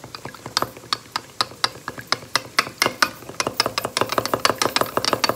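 Raw eggs being whisked in a bowl, the utensil clicking rapidly against the side of the bowl, getting quicker after about three seconds.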